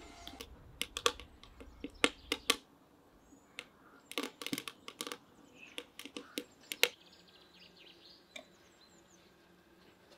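Dry kindling sticks being snapped and fed into a samovar's chimney: a run of sharp snaps and knocks over about seven seconds, thinning out near the end. Small birds chirp faintly.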